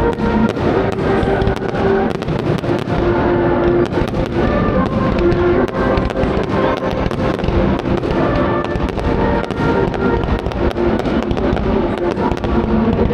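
Fireworks going off in a dense run of irregular bangs and crackles, several a second, over music with held notes.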